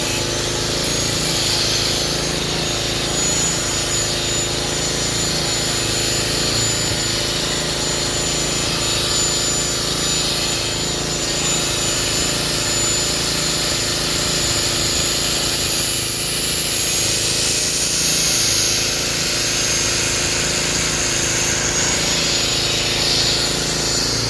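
Hitachi excavator working at chipping oil palm trunks: its diesel engine runs steadily under load, with a thin, steady high whine over it.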